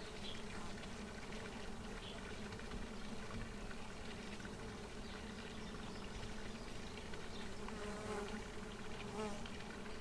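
Faint, steady insect-like buzzing with a low hum, and two short rising chirps near the end.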